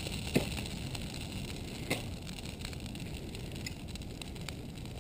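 Christmas tree burning fiercely: a steady rush of flame with sharp pops and crackles, the loudest pops about half a second in and again near two seconds.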